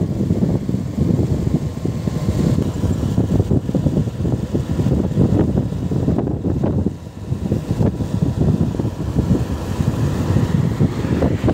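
Wind buffeting the microphone of a moving motorcycle, a rough, low rumble mixed with the bike's running and road noise. It eases briefly about seven seconds in.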